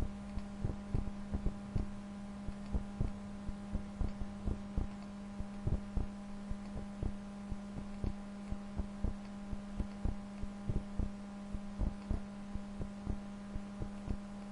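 Computer mouse clicks, heard as soft low thuds two or three times a second at an irregular pace, while points are adjusted in embroidery digitizing software. A steady electrical hum runs underneath.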